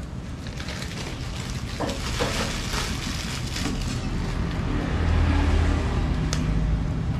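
Road traffic passing on the street: a motor vehicle's low engine rumble grows louder in the second half. A single sharp click is heard about six seconds in.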